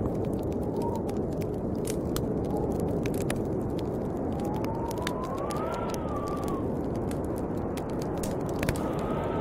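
Snowstorm wind blowing steadily, with a whistling howl that rises and falls around the middle and again near the end, over the scattered pops and crackles of a wood fire.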